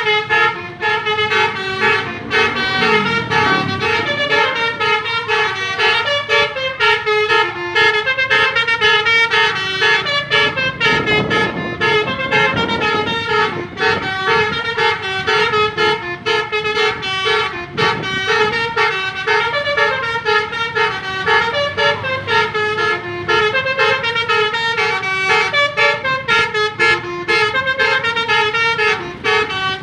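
Multi-tone Basuri telolet bus horn playing a fast koplo-style tune, its notes stepping quickly in an even rhythm. A lower wavering tone comes in about three seconds in and again near the middle.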